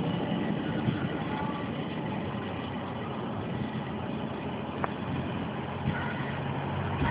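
Diesel engines of a convoy of double-decker tour coaches running steadily as the coaches drive slowly past in a line: a continuous low rumble.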